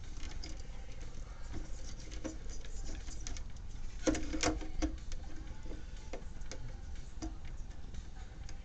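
Scattered small clicks and taps of parts being handled during reassembly of a refrigerator dispenser's control board and wiring, with a louder cluster of clicks about four seconds in.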